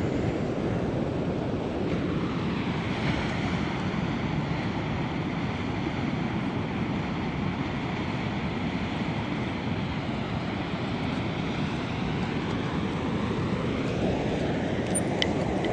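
Steady rumbling noise of wind on the microphone over open sea water, with no distinct tones or rhythm.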